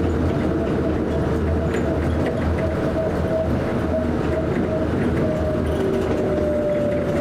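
A passenger train running, heard from inside the carriage: a steady rumble with a thin motor whine whose pitch slowly falls over the last few seconds.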